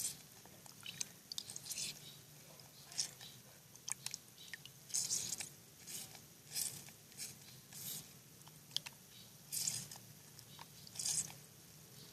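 A foam squishy being washed by hand in water: short, wet squelching sounds repeated about every second or so.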